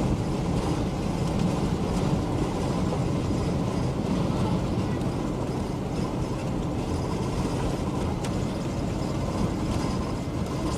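Steady engine and road noise of a moving vehicle, an even low rumble with no changes.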